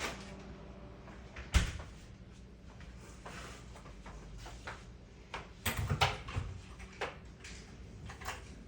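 Knocks and clicks of things being handled while herbal medicine is made up by hand. There is one sharp knock about one and a half seconds in and a cluster of knocks around six seconds, over a low steady hum.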